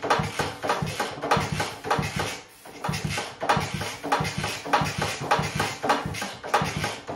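A 1964 Honda 50 Super Cub's small single-cylinder four-stroke engine being turned over with the spark plug out, air puffing from the plug hole in a steady rhythm of about three to four puffs a second. It is a compression check, and the compression is good.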